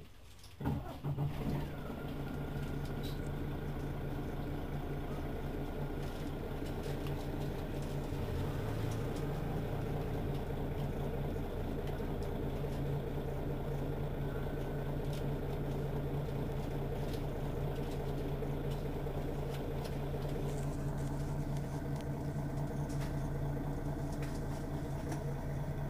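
Mercedes-Benz Citaro city bus engine idling with a steady low hum. It comes in abruptly about a second in, then holds steady.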